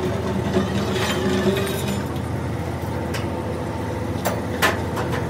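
An engine running steadily, with a few sharp knocks about three to four and a half seconds in.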